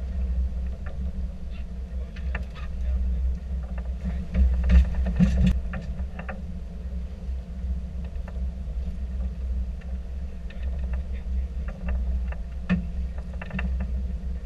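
Boat engine running with a steady low rumble, with scattered knocks and clatter on deck, loudest about five seconds in.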